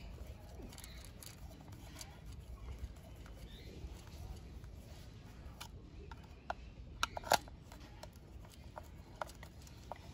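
Small screws being driven into a plastic toy train body with a hand screwdriver: faint scraping and light clicks, with two sharper clicks about seven seconds in.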